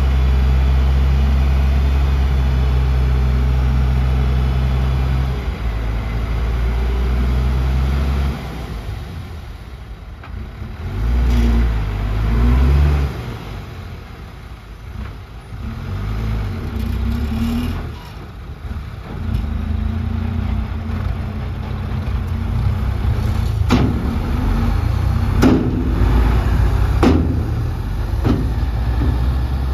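Heavy diesel engine of construction machinery, running loud and steady for about eight seconds, then falling back and rising and falling in revs. Several sharp knocks come near the end.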